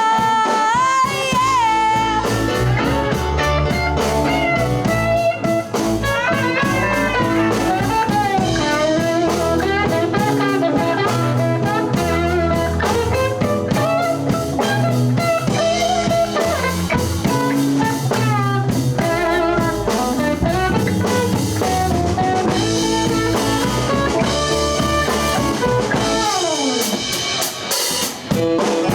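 Live blues band playing an instrumental passage: drum kit and bass keep a steady groove under a lead line of bent, wavering notes. Near the end there is a long falling glide.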